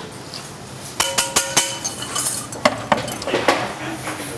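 Metal kitchenware clinking: a ringing metallic clatter about a second in, then several lighter clinks and clicks.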